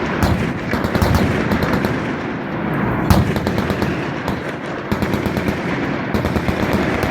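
Loud, continuous automatic gunfire from machine guns, with rapid overlapping shots and one sharper report about three seconds in.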